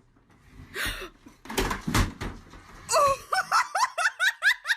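A few thuds and rustles, then a person laughing hard in a fast run of short, high-pitched ha's.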